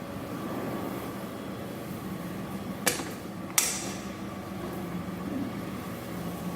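Cummins 360 kW diesel generator set in a sound-attenuated enclosure, running with a steady low hum. Two sharp knocks come about three seconds in, half a second apart, the second louder with a short ring.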